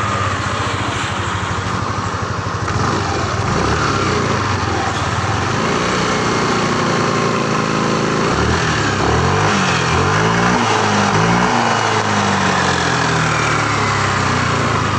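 Yamaha Lexi scooter engine and CVT running, idling and then revved up and down several times in the middle before settling back to idle. It has a freshly replaced CVT bushing, and the rough 'ngorok' growl from the CVT is taken as cured: it now runs smoothly.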